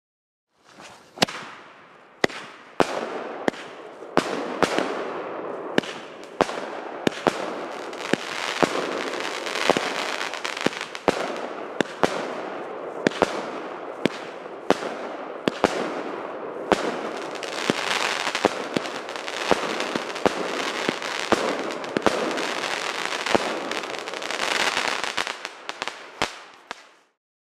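Pyroco Lahváček 19-shot, 30 mm fireworks cake going off: a long run of sharp bangs, one to two a second, over continuous dense crackling from the bursts, stopping just before the end.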